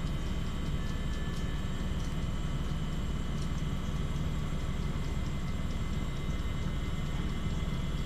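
Maxtor 7120AT hard drive spinning with a steady hum and faint, irregular ticks from its heads seeking as it tries to write copied files. The drive is failing and is no longer completing the copy.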